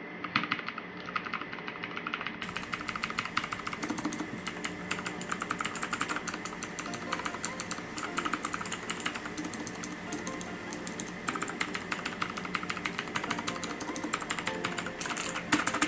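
Clicky mechanical keyboard switches (Outemu Blue) clacking quickly and continually as keys are pressed and keycaps pushed back on, over background music.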